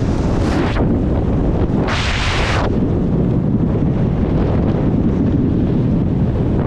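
Wind buffeting the action camera's microphone in a steady low rumble, with two short hisses of skis scraping over groomed snow, the first ending just under a second in and the second about two seconds in.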